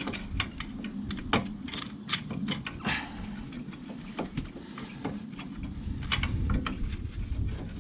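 Irregular metallic clicks, knocks and clatter of brake parts and tools being handled while a front brake caliper is taken off.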